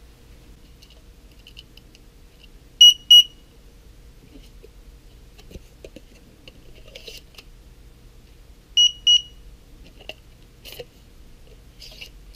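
Samsung Anytoll SSE-550 hi-pass toll terminal beeping: a quick high-pitched double beep about three seconds in and another about nine seconds in, with faint plastic clicks and rattles between. The beeps show the unit powering up again on its 9V battery now that its faulty battery connector has been replaced.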